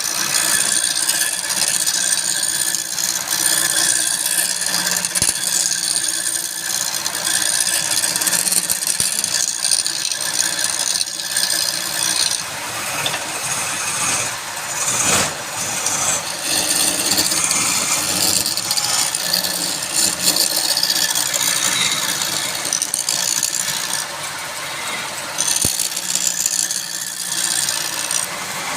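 Wood lathe running while a cutting tool scrapes the spinning wood: a steady, rattling, hissing noise.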